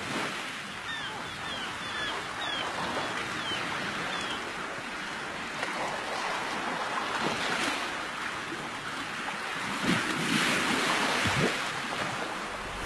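Steady rush of sea waves and wind, with a few faint short high chirps in the first few seconds and a louder surge about ten seconds in.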